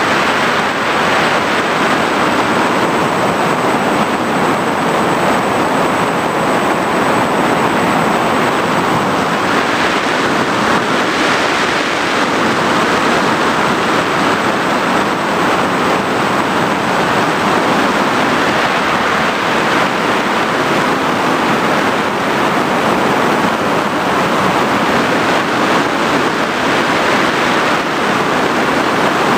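FPV drone in flight, heard from its onboard camera: a steady, loud rush of propeller and wind noise with no changes.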